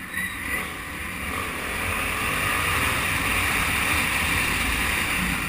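Small-displacement motorcycle running along a street with wind rushing over the microphone; the engine note rises gently in the middle as it speeds up.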